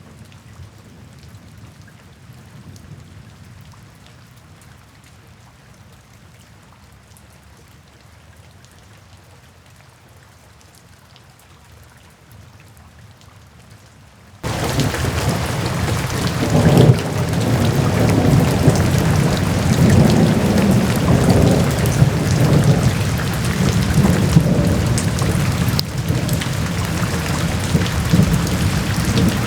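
Rain falling steadily, soft at first, then about halfway through it suddenly becomes much louder heavy rain with low rolling rumbles of thunder.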